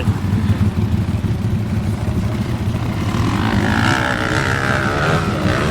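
ATV engines running with a steady low rumble. From about three seconds in, a higher engine whine joins and slowly falls in pitch.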